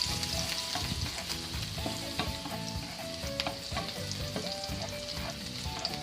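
Garlic sizzling in hot oil in a frying pan, with sharp clicks and scrapes of a utensil against the pan as it is stirred, for sautéing until it browns.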